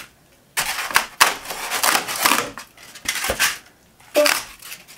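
Expanded polystyrene foam board being torn and broken off a fibre-cement roof sheet, crunching and squeaking in several separate bursts, with a short sharp knock a little after three seconds in. The glued foam breaks apart instead of coming loose from the adhesive.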